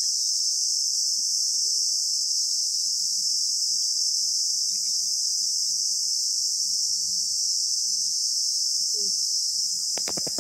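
A steady, high-pitched chorus of insects, with a few sharp clicks near the end.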